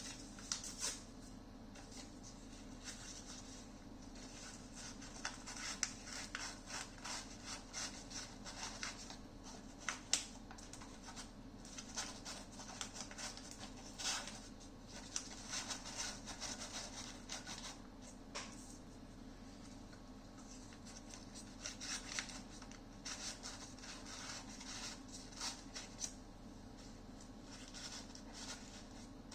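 Paper shims rubbing and scratching as they are worked in around a loudspeaker's voice coil to center it in a tight gap. The scratching comes and goes in short faint bouts, with a few sharp clicks.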